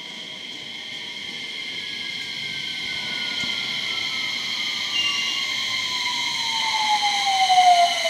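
JR West 227 series electric multiple unit running along a station platform. Its motor whine falls steadily in pitch and grows louder, loudest near the end, over a steady high hum and wheel rumble on the rails. The falling whine is typical of a train braking to a stop.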